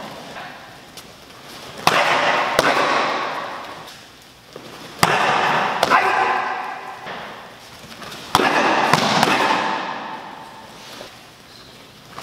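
Sharp slaps of taekwondo kicks striking a handheld kick paddle, three quick pairs about three seconds apart. Each pair is followed by a swell of crowd noise that fades over two or three seconds.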